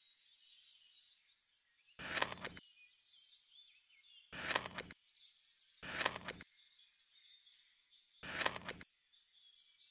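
Four short, loud, noisy strokes of about half a second each, a couple of seconds apart, from food preparation with kitchen utensils, over faint steady bird chirping.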